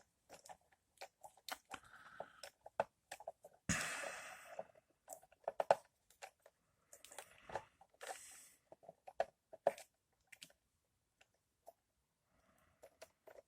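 Scattered light clicks, ticks and short scraping rustles of a small hand tap and a plastic HO-scale passenger car being handled on the bench, just after a screw thread has been tapped into the plastic. The two longest scrapes come about four and eight seconds in.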